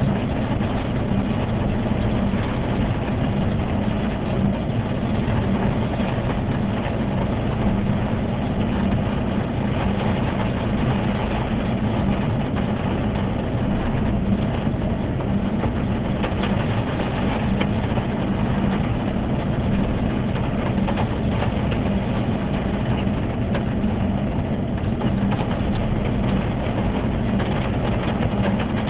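Car driving in rain, heard from inside the cabin: steady engine hum and road noise on wet tarmac, with rain ticking on the windscreen.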